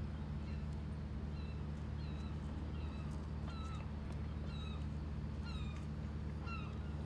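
A series of short, high animal calls, each bending in pitch, about one or two a second, over a steady low hum.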